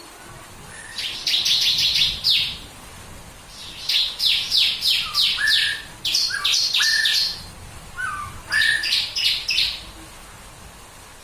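Ciblek kristal (bar-winged prinia) singing its 'tembakan' song: three bursts of rapid, evenly repeated high notes, with a few short lower whistles in between.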